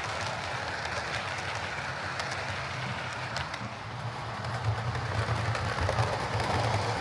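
Heljan Class 58 OO gauge model diesel locomotive running on track: a steady motor and gear hum with scattered light clicks from the wheels on the rails.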